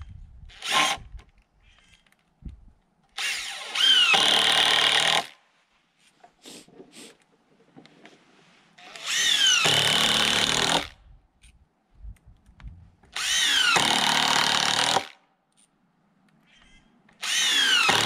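Cordless impact driver driving screws into treated-lumber boards, four runs of about two seconds each, each opening with a falling whine.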